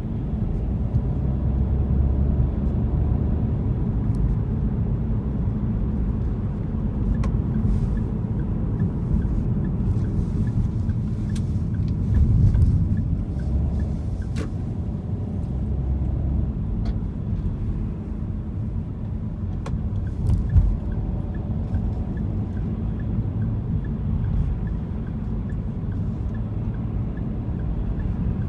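Steady low road and engine rumble of a car heard from inside the cabin while driving, with a couple of louder thumps about halfway through and again about two-thirds of the way through.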